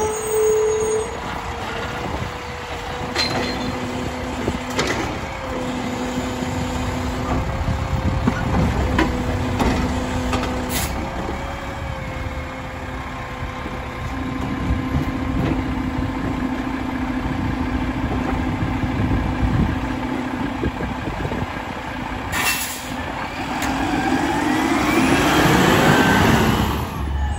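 Mack LR Labrie Automizer side-loader garbage truck running at the curb, with a steady whine, a lower tone that comes and goes, and a few sharp knocks. Near the end the truck pulls past and the sound swells, with a high squeal.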